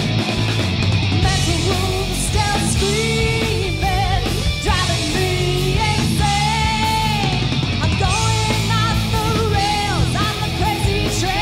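Live hard rock band playing loud, with distorted electric guitars, bass guitar and drums, and a woman singing.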